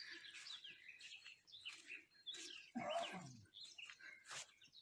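Songbirds chirping and singing faintly, short high calls and trills one after another, as they start up again after a thunderstorm. A louder, lower sound that slides downward comes about three seconds in.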